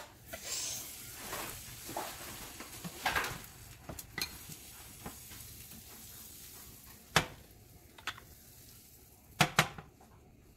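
Butter sizzling in a hot nonstick frying pan, with scattered sharp clicks and knocks of the pan and utensils. The sizzle fades about two-thirds of the way through. The loudest knocks come then: one sharp knock, and a quick pair about two seconds later.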